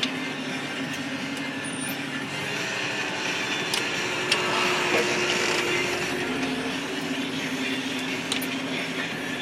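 Massey Ferguson 6150 tractor's diesel engine running steadily under load while pulling a plough, with a few short sharp clicks.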